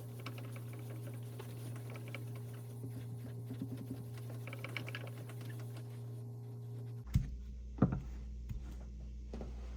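Short gritty rubbing strokes on a wet natural whetstone, over a low steady hum that cuts off about seven seconds in. Two sharp knocks follow, around seven and eight seconds in.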